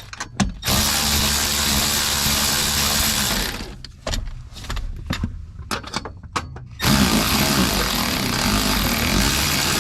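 Power drill running with a 7/16 socket to take out the fasteners holding a truck's power inverter. It runs in two long bursts, with clicks and knocks of handling in between.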